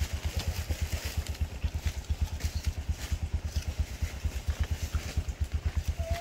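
A small engine idling: an even, rapid low thumping, about seven beats a second. A short, clear whistle-like tone sounds near the end.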